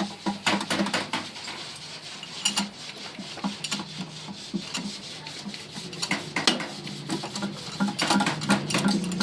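Irregular metallic clinks, knocks and scraping from tools and parts being handled, over background music.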